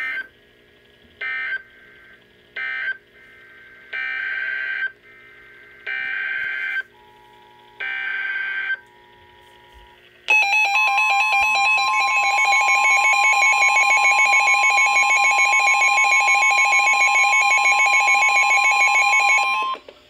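NOAA Weather Radio alert tones through SAME weather alert radios. Three short data bursts (the end-of-message code) come first, then three longer data-burst headers announcing a new flash flood warning. About ten seconds in, the steady warning tone starts together with the radios' own rapid alarm beeping, loud and steady for about ten seconds until it cuts off just before the end.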